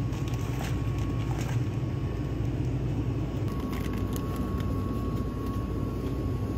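Steady rumbling room noise of a convenience store with a thin steady whine, overlaid by a few light clicks and rustles of packaged goods being taken from the shelves.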